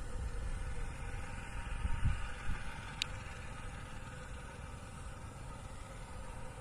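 Distant jet airliner engines running steadily, a hum with several held tones, with wind rumbling on the microphone early on. A single sharp click sounds about three seconds in.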